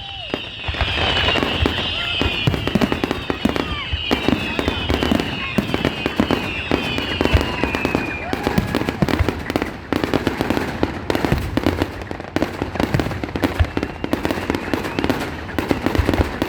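Fireworks display: a dense, continuous run of bangs and crackling. Over roughly the first half, high whistling tones sweep down in pitch, one after another.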